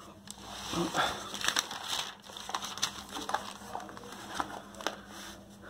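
Paper notebook pages being turned by hand, the sheets rustling and crinkling in a run of irregular rustles.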